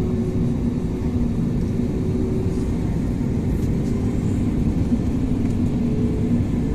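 Cabin noise aboard an Airbus A321neo taxiing: a steady rumble of the engines and rolling wheels with a low hum, and a faint higher tone rising slightly near the end.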